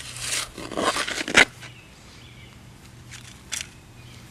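Shovel blade scraping and crunching into loose garden soil several times in the first second and a half, the sharpest stab near the middle of that run, then a softer scrape of soil a few seconds in.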